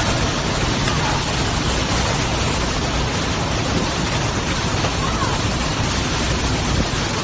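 Strong storm wind with driving rain: a loud, steady rush with a heavy low rumble of gusts buffeting the microphone.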